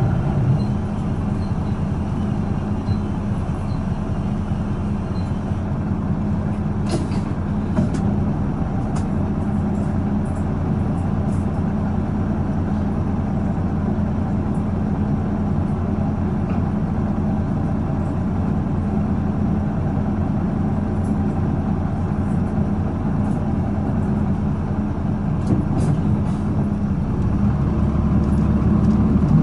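Cabin sound of a 2005 Isuzu Erga PJ-LV234N1 route bus, its six-cylinder diesel idling steadily, with a few faint clicks. Near the end the engine note deepens and grows louder.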